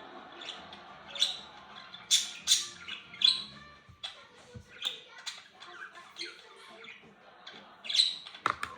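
Homemade slime being squeezed and handled: irregular short wet clicks and squelches, several a second, with a louder cluster near the end.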